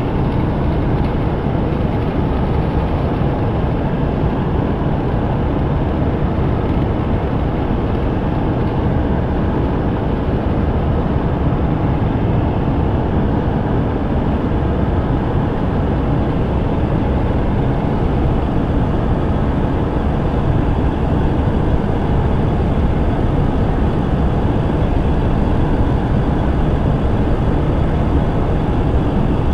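Electroacoustic music: a dense, steady low rumble of noise with no clear pitch or beat, holding at an even level throughout.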